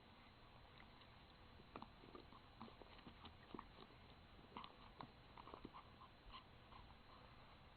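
A papillon chewing on a MooTube chew treat: faint, irregular crunches and clicks of teeth on the chew, coming thickest in the middle.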